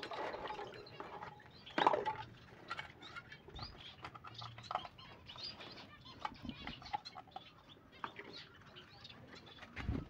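Caged finches calling in short, scattered chirps, with small flutters and clicks among them and one louder flutter about two seconds in.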